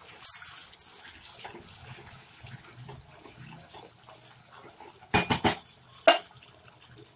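Masala paste sizzling and bubbling in hot oil in a frying pan as a spatula stirs it. About five seconds in comes a quick run of sharp utensil clacks, and a single louder one about a second later.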